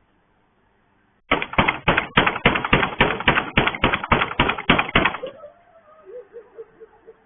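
Someone banging hard and fast on a gate, about fourteen sharp blows in under four seconds, starting about a second in.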